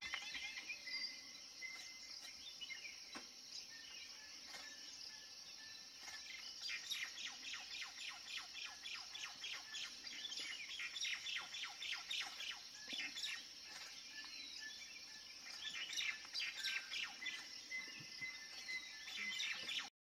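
Birds chirping and singing, with stretches of fast repeated notes, over a steady high-pitched insect drone.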